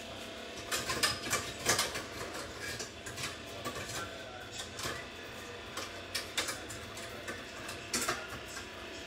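Kitchen utensils and cookware being handled: irregular clicks and light knocks, a few louder clusters in the first two seconds, over a faint steady hum.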